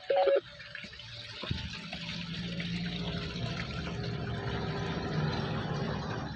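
Waterfall: a steady, even rush of falling water that comes up about a second and a half in. A brief loud pitched sound is heard right at the start.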